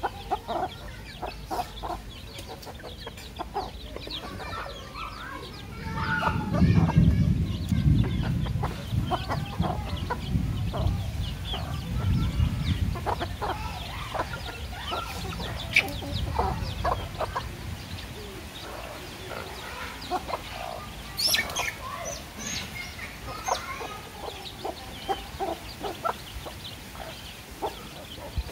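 Hens clucking and chicks peeping as they feed on rice scattered on concrete, with many short taps of beaks pecking the ground. A low rumble comes in about six seconds in and fades out by around seventeen seconds.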